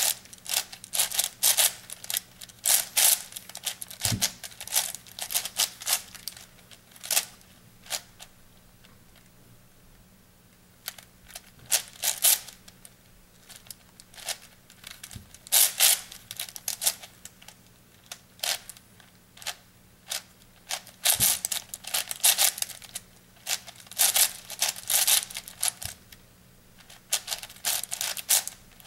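Plastic 8x8 puzzle cube being twisted by hand: bursts of rapid clicking and clacking as its layers turn, with short pauses between, the longest about a third of the way in.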